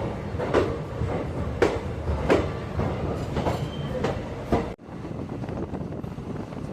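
Passenger train running on the rails, its wheels clacking over rail joints every half-second to second above a steady rumble. About four and a half seconds in, the sound cuts off abruptly and gives way to a steadier rushing noise without the clacks.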